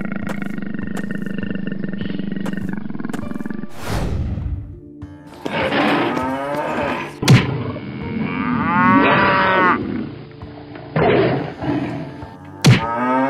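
A cow mooing in one long call, then a whoosh, followed by a tiger's repeated roars and snarls, with two sharp hits as it attacks.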